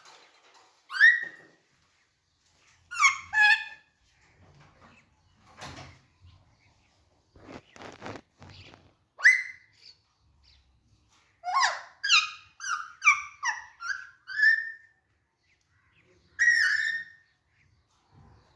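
Alexandrine parakeet calling: short whistled calls with sliding pitch, spaced a few seconds apart, then a quick run of about eight calls in a row just past the middle. A brief rattle sounds in between the calls.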